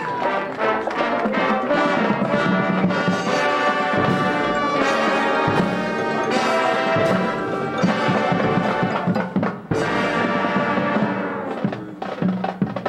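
High school marching band playing its field show: brass section over front-ensemble percussion, with the music softening near the end.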